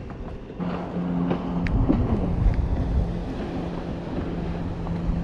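A boat motor starts a steady hum about half a second in, over low wind rumble on the microphone.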